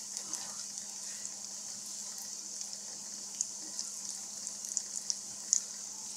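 Syrniki (cottage-cheese patties) sizzling in hot oil in a frying pan: a steady hiss with scattered pops and crackles.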